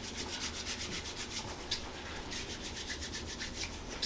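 Massage work on the body: a quick run of soft, rhythmic rubbing strokes, several a second.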